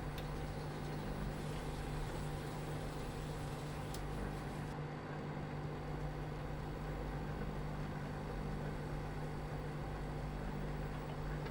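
A steady low mechanical hum from a running household appliance, unchanging in pitch and level.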